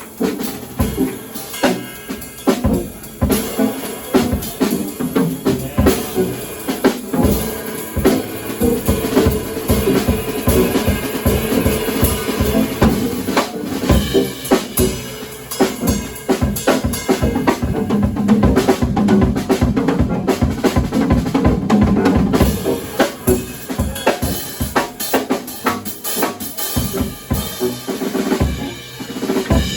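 Drum kit played live as a drum solo: rapid, continuous strokes on bass drum, snare and toms, with rimshots.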